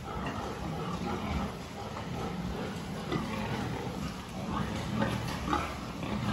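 Pigs in a pen grunting now and then, over a steady low hum.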